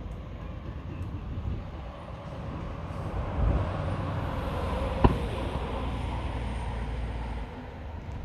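Fireworks going off: a long low rumble rolls in about three seconds in and fades near the end, with one sharp crack about five seconds in.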